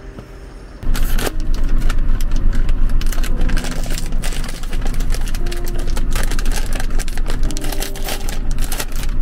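Loud, close crinkling and crackling of a foil snack bag of Pizza Potato chips being handled and torn open by hand. It starts abruptly about a second in and goes on as a dense run of crackles.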